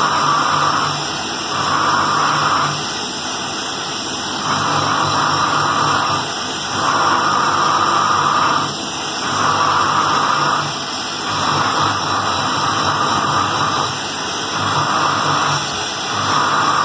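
Gas welding torch flame hissing steadily while brazing a joint on a metal lota, with a rhythmic surge that swells for a second or so and eases off about every two seconds.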